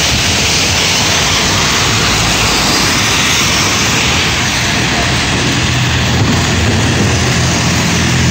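Heavy rain pouring onto a flooded street, with vehicles driving through the water. From about halfway in, a heavy truck's engine adds a steady low drone under the rain.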